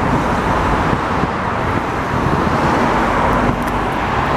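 Steady jet airliner engine noise as the plane passes.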